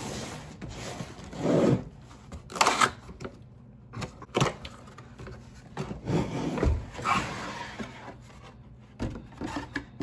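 Cardboard retail box being turned over and opened by hand: irregular scraping, rubbing and rustling of cardboard, with a few louder knocks and slides.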